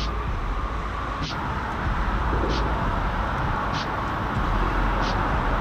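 Steady low rumble of background noise beneath a road bridge, with a faint, short, high chirp repeating about every second and a quarter.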